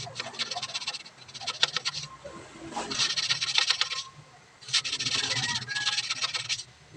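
Repeated scraping strokes, five of them, each about a second long with short gaps between.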